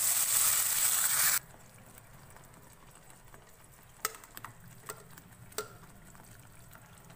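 Hot oil sizzling loudly as wet onion-garlic paste is poured into it, cutting off suddenly after about a second and a half. Then quiet, with a few light clicks as a spoon scrapes the last of the paste from the blender jar.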